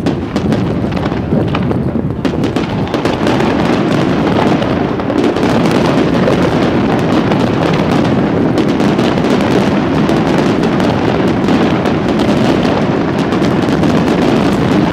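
Aerial firework shells bursting in quick succession, their bangs running together into a loud, continuous barrage with crackling.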